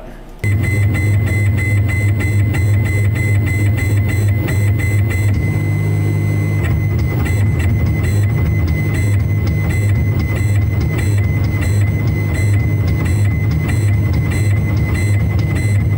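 Tormach 1100 CNC mill running a probing routine, its axes driving a touch probe down and across a piston crown. It makes a loud steady low hum with a thin high whine over it and many quick irregular ticks. The sound starts abruptly about half a second in.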